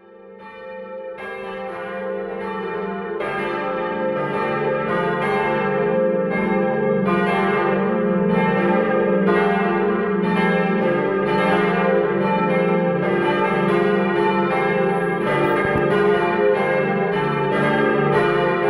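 A peal of church bells ringing, several bells striking unevenly about once or twice a second over their lingering hum, fading in over the first couple of seconds.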